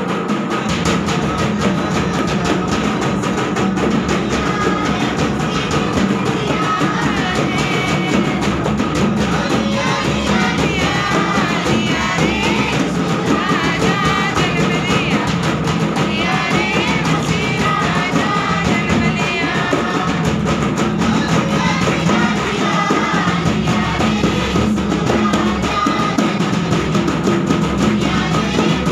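A group singing a Hindi Christmas carol to steady drumming on a large bass drum beaten with a stick and a red rope-laced double-headed hand drum. The singing is strongest in the middle, and the drumming carries on without a break.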